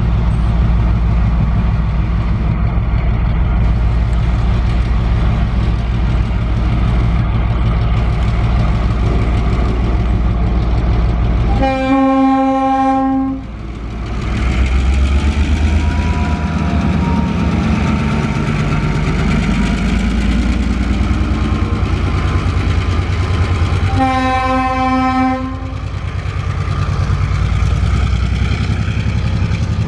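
TasRail 2010 class diesel locomotive working hard as it pulls a cement train past, its engine running with a steady low throb. The horn sounds twice, about 12 and 24 seconds in, each blast about a second and a half long. Near the end the cement hopper wagons roll by.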